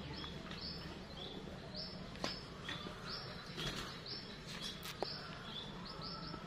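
Birds chirping: short, high calls repeating every half second or so, with a couple of faint clicks in between.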